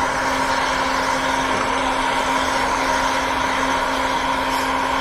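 Portable hot-air snack maker's blower running steadily: an even rush of air with a constant hum, puffing pani puri shells that rise up its chute.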